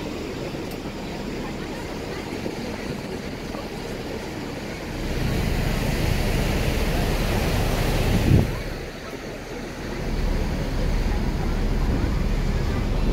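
Wind buffeting the microphone and water rushing past on the open deck of a moving passenger ferry. The noise swells about five seconds in with a sharp gust near eight seconds, eases briefly, then rises again.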